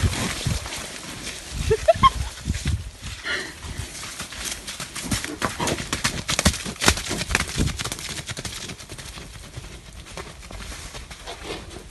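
Rhino running on wet ground: heavy, irregular footfalls mixed with rustling of leaves and branches. A short rising squeak comes about two seconds in, and the footfalls thin out over the last few seconds as she moves off.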